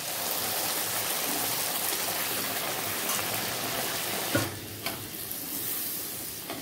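A puri frying in hot oil in an iron kadai: a steady sizzle that eases a little near the end. There are two short knocks of the metal slotted spoon against the pan about four and a half seconds in.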